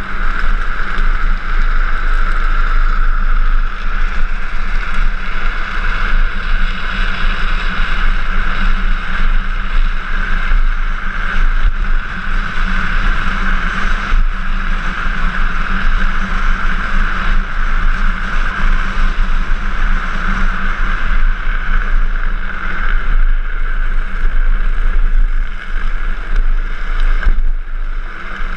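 Wind rushing over an action camera's microphone on a fast downhill drift-trike run, mixed with the steady rolling hum of the trike's hard plastic rear wheels on asphalt.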